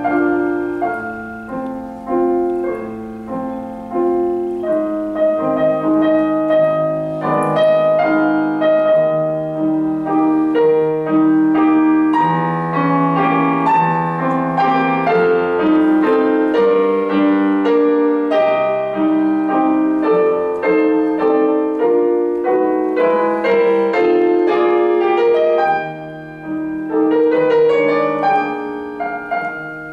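Solo digital stage piano playing a piece with a moving melody over held lower notes, with a short softer moment near the end.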